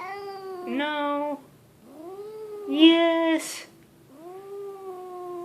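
A domestic cat gives three long, drawn-out grumbling meows in a row, each bending up and down in pitch and the first two swelling louder at the end, so that they sound like "no." The cat is complaining at being held.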